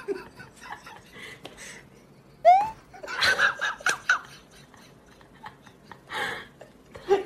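A person laughing in short bursts, starting with a high rising squeal about two and a half seconds in.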